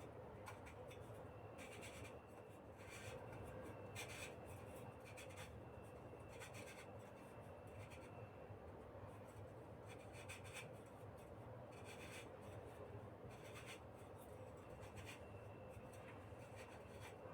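Faint scraping, rubbing and light clicks of metal flame safety lamp parts being handled and screwed together.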